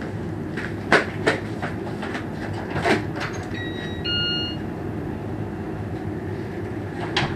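Electronic two-tone doorbell chime, a higher note then a lower one, each about half a second long, about three and a half seconds in. Under it runs a steady rumbling background with a few sharp knocks and clicks.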